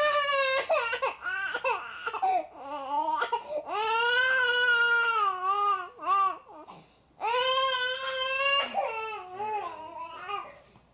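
Baby crying: three long, high wails, with shorter cries between them.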